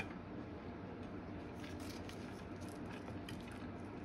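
Faint crackles of crisp grilled-cheese toast and air-fried egg roll wrapper being handled on a plate, over a steady low hum, with one sharp click at the very start.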